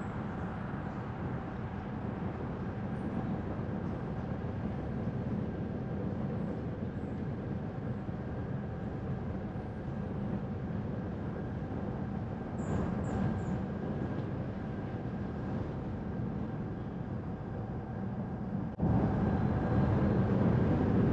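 Steady road and engine noise of a car being driven, which jumps suddenly louder near the end.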